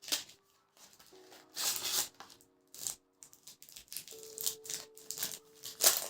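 Irregular rustling and light rattling of things being handled, with a sharp click near the end, over soft background music.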